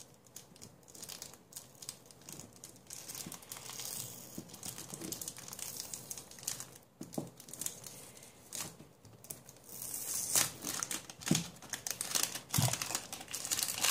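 Thin plastic wrapping crinkling and crackling as it is peeled off a new 3x3 speedcube, irregular handling with a few sharp crackles, getting louder in the last few seconds.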